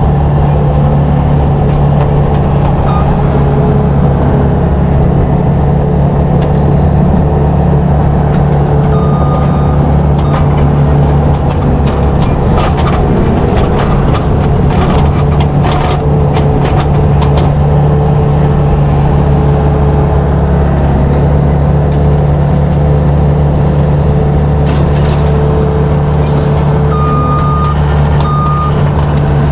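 Farm tractor's diesel engine running steadily at a constant speed, with a short electronic beep about a third of the way in and two more near the end.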